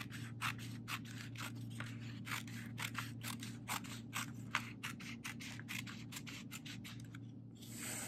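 Scissors cutting along the fold of a sheet of paper in quick short strokes, about four snips a second, then a short rustle of paper near the end.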